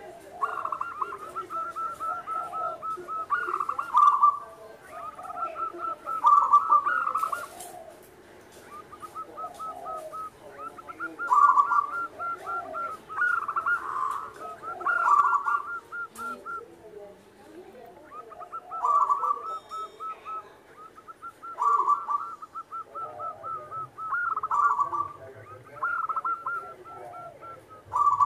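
Caged zebra dove (perkutut) singing: phrases of rapid, trilling coo notes broken by louder, fuller notes, repeated over and over with short pauses between phrases.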